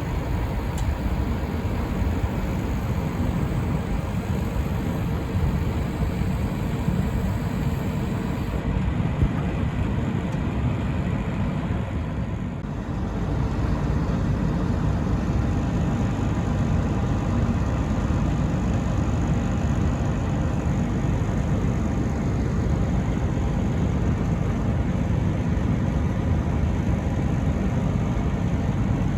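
Diesel engine of a Wirtgen W 200i tracked cold planer running steadily, with a brief dip in level about twelve seconds in.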